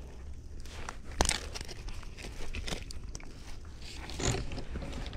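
Handling noise as a mesh fishing net and a rod are moved about on wooden boards: crackly rustling and scattered clicks, with one sharp knock about a second in.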